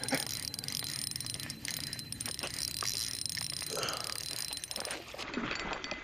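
A faint, steady high-pitched drone, with scattered light clicks and brief rustles from a spinning rod and reel being handled while a hooked bass is played.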